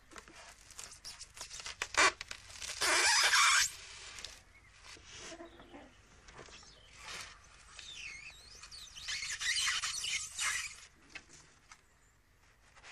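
Expanded polystyrene sheets squeaking and rasping as a large needle and thread are pushed through them and the stitch is pulled tight. There is a sharp click about two seconds in, and louder scraping rasps at about three seconds and again around nine to ten seconds.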